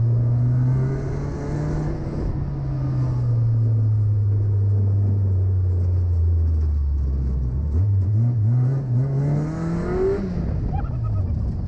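Honda-powered off-road buggy's engine heard from inside the open cab. Its note sinks slowly as it eases off, then climbs in several quick surges as it accelerates, and falls away near the end.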